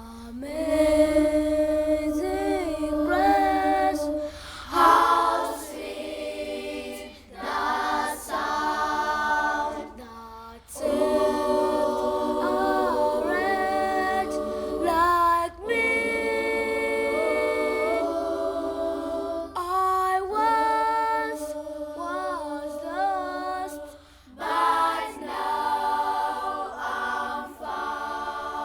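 Children's choir singing a cappella in phrases a few seconds long, with short breaks between them.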